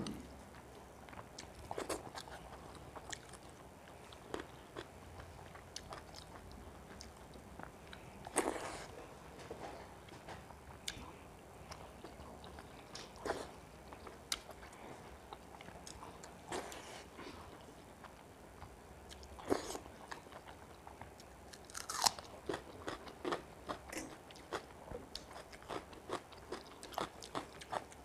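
Close-up eating sounds of a person chewing mouthfuls of pakhala, rice soaked in water, eaten by hand with greens and egg bhujia: irregular wet mouth clicks, smacks and bites, coming thicker and faster near the end.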